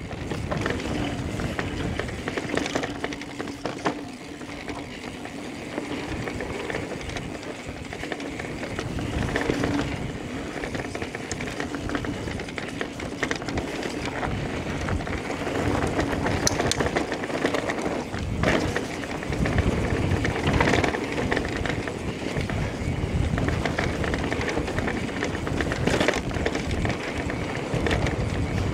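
Electric mountain bike riding down a dirt singletrack: tyres rolling over the dirt, with knocks and rattles from the bike as it hits bumps.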